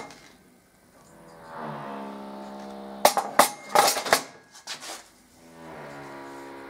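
A quick cluster of sharp plastic clacks and knocks as the front panel and drawer of a duplicator's cabinet stand are handled. Steady held musical tones sound before and after the clacks.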